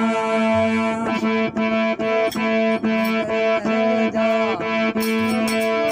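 Instrumental interlude of a Marwari devotional bhajan: steady held drone notes with a melody moving above them. From about a second in, a regular pattern of quick strokes keeps time, and brighter clicks join near the end.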